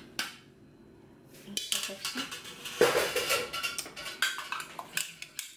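Metal saucepan and wire-mesh sieve knocking and clinking against a plastic measuring jug while warm milk is strained: a single clink, a second of quiet, then a busy run of knocks and clatters.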